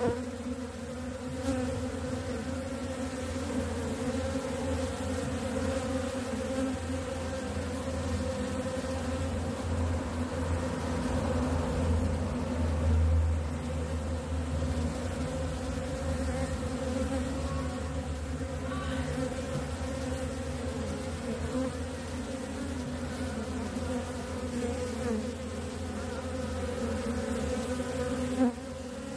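Honeybees buzzing over the top bars of an opened hive, a steady dense hum of many wings.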